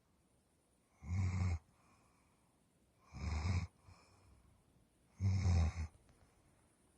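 A pet snoring like a man in its sleep: three deep, rumbling snores about two seconds apart, the last one the loudest.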